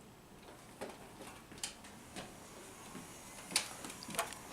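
Scattered plastic clicks and knocks from handling a Nerf N-Strike blaster fitted with its add-on attachments, five or so sharp taps a second or less apart.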